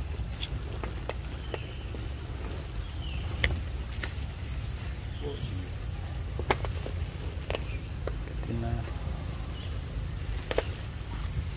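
Insects droning at one steady high pitch, over a low rumble, with a few sharp clicks scattered through.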